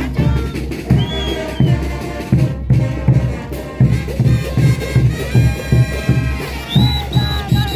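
Brass band playing tinku dance music, with a steady bass drum beat about twice a second under the horns.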